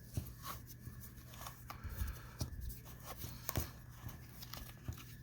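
Faint, irregular clicks and scrapes of a plastic part of a Hoover FloorMate Deluxe SpinScrub floor cleaner being handled and unscrewed by hand.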